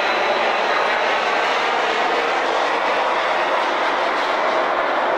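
Jet engines of a McDonnell Douglas DC-10 running steadily as the airliner rolls along the runway: an even rushing noise, with a faint high whine that fades about a second in.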